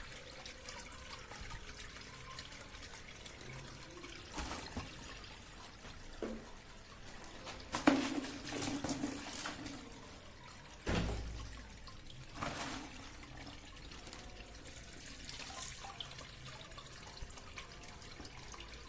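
Aqua regia solution draining through a cloth filter into a bucket, a faint steady trickle and drip. A few sharp knocks break in, the loudest about 11 seconds in.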